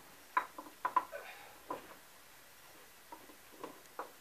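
Ratchet wrench on a long extension clicking in short, irregular clusters of sharp metallic ticks as it is swung back and forth on the nuts of a Mercruiser Bravo One outdrive's bell housing.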